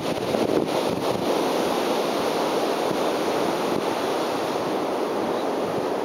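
Steady rush of ocean surf mixed with wind on the microphone.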